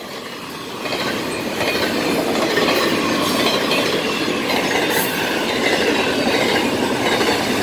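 Southbound Florida East Coast intermodal freight train passing close by at speed: its double-stack container and trailer flatcars roll over the rails with a steady rush and clatter of wheels, growing louder about a second in.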